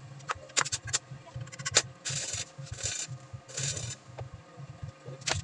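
Hand handling a steel square-tube window grill: a few sharp clicks, then three short rubbing scrapes in the middle.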